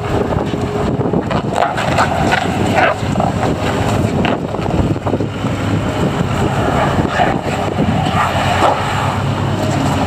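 Kubota SSV75 skid steer loader's four-cylinder diesel engine running steadily, with wind buffeting the microphone.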